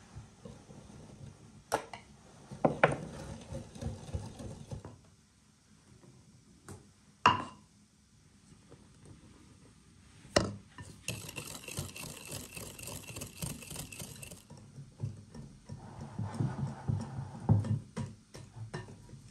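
Wire whisk stirring batter in a glass mixing bowl, with a few sharp clinks of the metal whisk against the glass. A steady hiss runs for a few seconds in the middle, and near the end comes a spell of quick, vigorous whisking.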